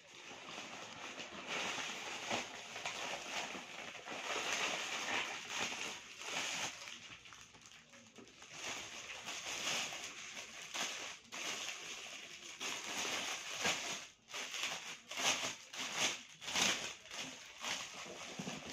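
Rustling and crinkling of packaging being handled by hand: a paper courier mailer opened and a clear plastic bag holding fabric, with many sharp crackles, louder in the second half.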